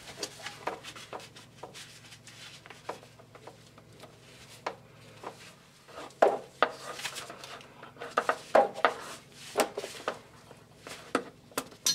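Gloved hands stripping the insulation off a green-and-yellow earth bonding cable and handling the wire: scattered small clicks, snips and rustles, busier in the second half.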